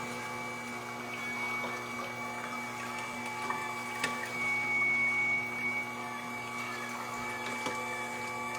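A steady machine hum with a thin high whine over it and a few faint ticks.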